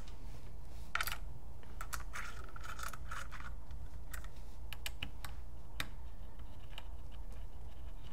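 Light, scattered clicks and ticks of small metal screws being handled and started by hand into the magwell of a Dye Assault Matrix paintball marker, left loose rather than tightened down. The clicks come in a small cluster about one to three seconds in and then thin out, over a steady low hum.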